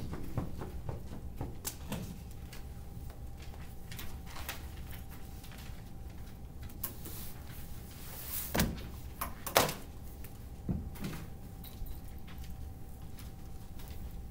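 Quiet classroom with a steady low hum and faint steady tone, and scattered small knocks and clicks from students shifting at their desks. Two louder knocks come about a second apart a little past halfway.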